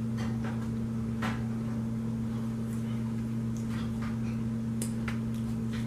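Steady low hum at two fixed pitches, with faint scattered clicks of chewing and mouth sounds from eating donuts.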